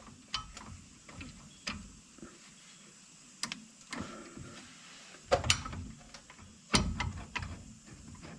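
Hand tools and metal brake parts clinking and knocking, with scattered sharp knocks and light clicks. The loudest knocks come about five and a half and seven seconds in.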